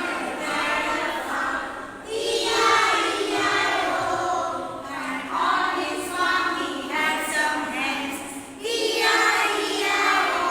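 A choir of high voices singing together, in phrases broken by two short pauses.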